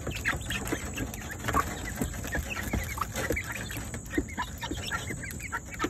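Chickens pecking mixed grain from a bare hand: a quick, uneven run of small sharp pecks and taps, with occasional clucking.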